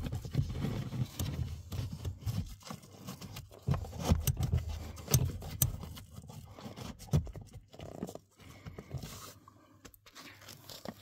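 A pleated cabin air filter being pushed up into its plastic housing under the dash: scraping and rubbing with irregular knocks and clicks of plastic, busiest in the first seven seconds or so and dying down after.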